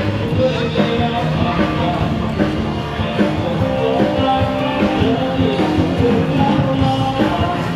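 Music with guitar, in a rock style.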